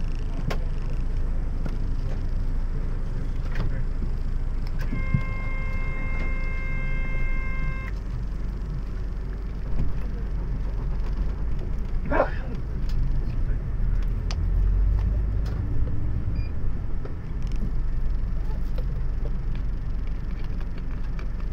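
Highway coach's diesel engine running at a stop, heard from inside the cabin, then pulling away with the engine louder about two-thirds of the way in. A steady electronic tone sounds for about three seconds near the start.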